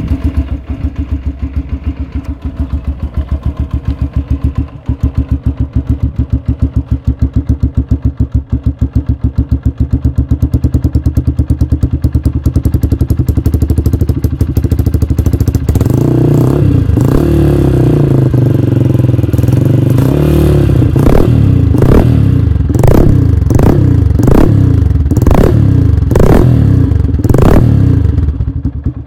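Yamaha YBR 125's single-cylinder four-stroke engine through an aftermarket aluminium exhaust, idling loud with a steady, even beat. About halfway through it is revved up and down a few times, then given a string of quick throttle blips about a second apart before dropping back to idle at the end.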